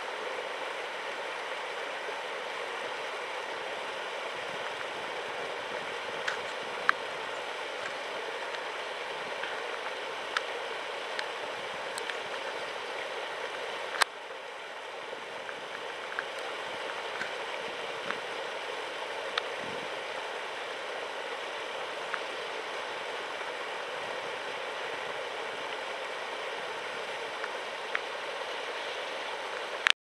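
Water gushing from a pipe outlet into a pond, a steady splashing rush of churning water, with a few sharp clicks scattered through it.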